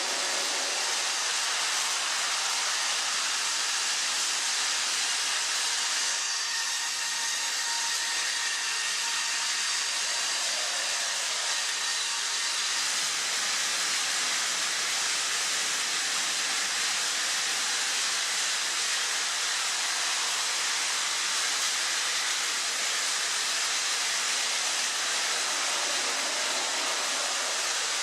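Battery-powered Plarail toy trains running on plastic track: a steady high whirring hiss of the small motors and wheels on the rails.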